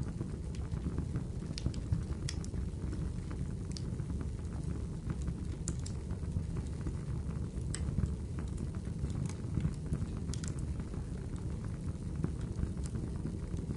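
Fire crackling: a steady low rumble with scattered sharp pops.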